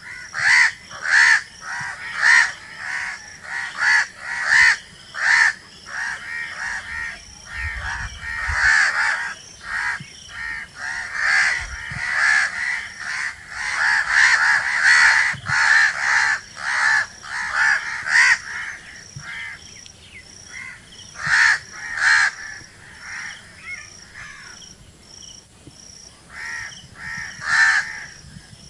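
Crows cawing over and over: short calls in irregular runs, packed most closely in the middle and spaced further apart towards the end.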